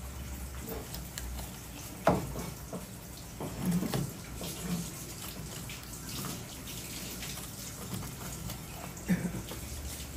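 Kitchen knife cutting along a large fish's backbone on a plastic cutting board, with short scrapes and knocks about two seconds in, around four seconds and again near nine seconds, over a steady watery hiss.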